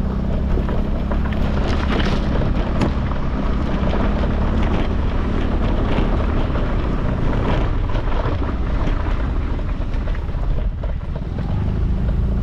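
Motor scooter engine running while riding, with wind buffeting the microphone. The engine note weakens a little past the middle and comes back near the end.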